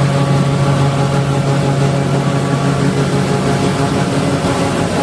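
John Deere W540i combine harvester running steadily while unloading its grain tank of wheat; its strong low hum weakens about three seconds in.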